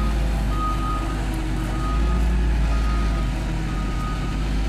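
A heavy machine's back-up alarm beeping at a single pitch, about once a second, over a steady deep engine rumble.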